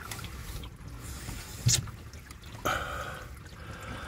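Water from a hose spraying on the car's body during a trunk leak test, heard from inside the trunk as a steady hiss. A single sharp tap comes about a second and a half in, and the hiss turns a little louder and brighter later on.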